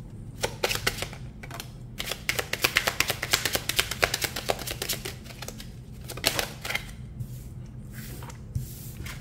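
A deck of Kipper fortune-telling cards being hand-shuffled: a fast run of light card clicks and riffling for about five seconds. Then a couple of single card sounds as cards are dealt onto the table.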